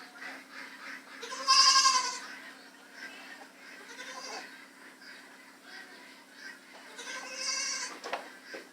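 A goat bleating twice, each bleat lasting under a second with a wavering tremble, with fainter animal calls in between.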